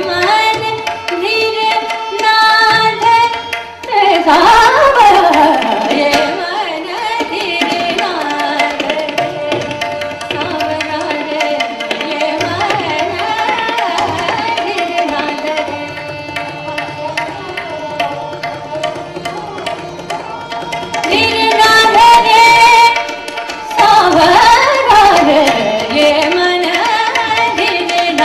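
Hindustani classical thumri in raga Tilang: a woman's voice singing ornamented, sweeping melodic runs over tabla playing Jat taal and a tanpura drone. The sweeping vocal runs are loudest about four seconds in and again near the end.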